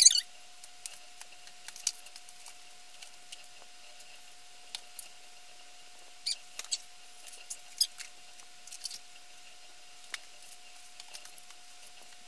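Books being handled and sorted into stacks: scattered light clicks, taps and rustles of covers and pages, the sharpest one right at the start, over a faint steady hum.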